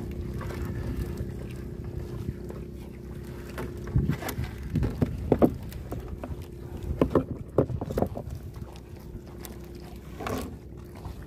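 Fishermen working a net aboard a small fishing boat: clusters of sharp knocks and thuds over wind and water noise, with a steady low hum underneath.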